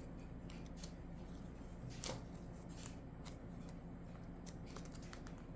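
Faint handling sounds: a few light clicks and rustles from a trading card and a plastic magnetic card holder, with the clearest click about two seconds in, over a low steady hum.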